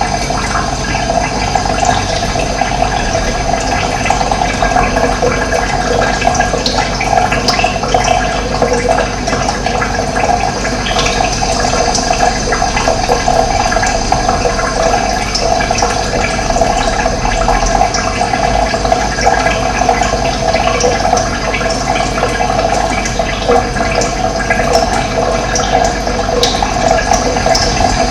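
Running water flowing with a steady, even rush.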